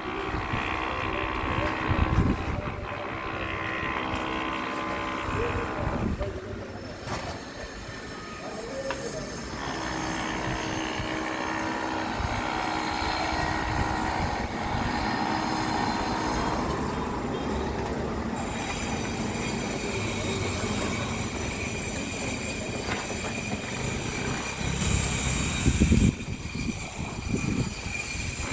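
Construction machinery running steadily with a rattling, clattering noise, with a few louder knocks about two seconds in and near the end.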